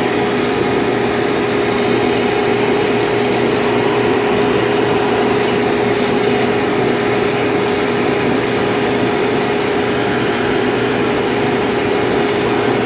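Vacuum cleaner running steadily with an even whine, its brush attachment being worked over a refrigerator's dusty condenser coils.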